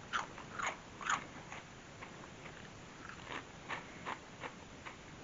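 A person chewing hollow, fry-shaped potato snack chips: three sharp crunches in the first second or so, then a run of softer crunches about every half second.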